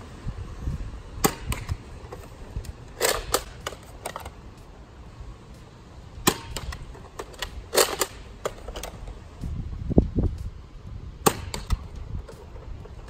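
Nerf Trilogy DS-15 pump-action dart blaster, spring-and-air-cylinder powered, being worked and fired: a string of sharp plastic clacks and pops in pairs and clusters every second or two, with a duller thump about ten seconds in.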